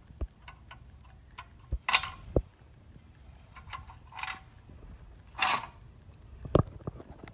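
A metal hand tool striking the broken satellite receiver and the concrete floor, with plastic and circuit-board pieces cracking and clattering. There are about eight scattered knocks and short crackles; the loudest come about two, five and a half and six and a half seconds in, the last a heavy thud.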